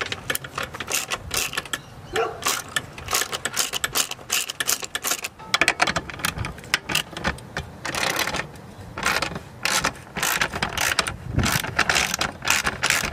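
Socket ratchet wrench clicking in quick runs as it turns out the 12 mm seat-rail bolts.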